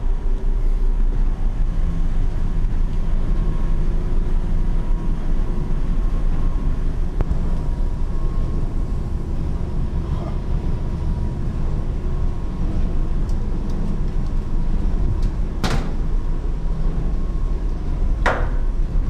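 Steady low rumble in the engine-room walkways with a faint, even whine, broken near the end by two sharp metallic clanks a couple of seconds apart.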